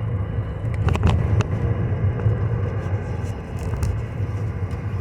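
Pokémon trading cards being handled, giving a few light clicks and snaps over a steady low rumble.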